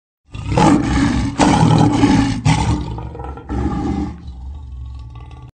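Lion roaring: a few long, deep, loud calls in the first four seconds, then trailing off into quieter grunts that cut off just before the end.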